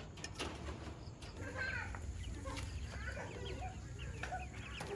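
Chickens calling: a scatter of short, high chirps and clucks, with a steady low rumble underneath.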